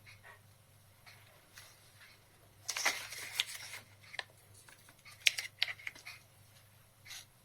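A paper sticker being peeled from its backing and pressed on: crackling, rustling handling noise in two short spells about three and five seconds in, with a few sharp ticks.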